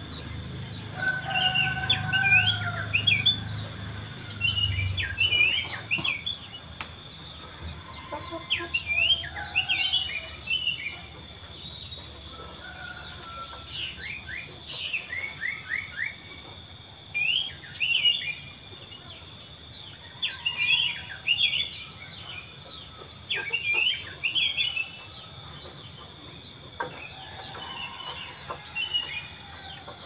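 Dawn chorus of small birds chirping in quick, short notes, many voices overlapping, over a steady high-pitched drone of insects. A longer held call sounds in the first few seconds, with a low hum underneath it that fades out.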